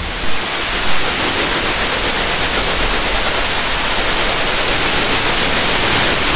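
Computer-generated white noise, passed through an acoustic EQ setting and normalized to make 'green noise', playing as a steady, loud hiss strongest in the treble.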